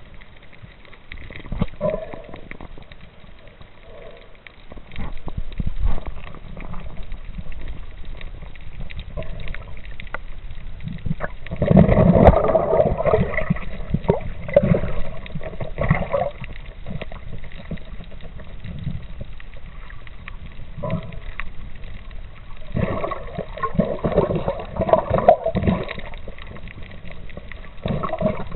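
Muffled water noise heard through an underwater camera: gurgling and bubbling that comes in irregular swells, loudest about twelve seconds in and again in the last few seconds.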